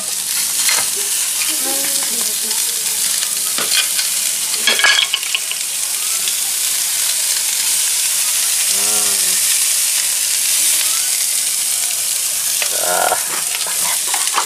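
Pressure-cooked catfish pieces sizzling steadily in a hot non-stick pan on a gas stove, with a few sharp clicks from the pieces being handled in the pan in the first few seconds.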